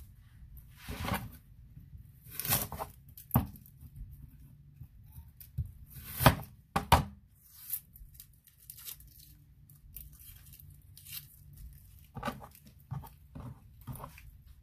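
Irregular tearing and crinkling of dry, papery onion or garlic skin being peeled by hand, with a few sharp knocks on a plastic cutting board.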